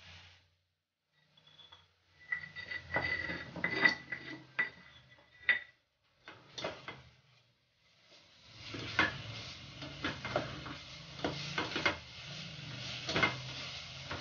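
Nylon spatula stirring and scraping ground spice paste in a stainless steel saucepan, with clicks and knocks against the pan. It comes in short bouts with pauses at first, then from about eight seconds in a steady sizzle of the paste frying in a little oil runs under the stirring.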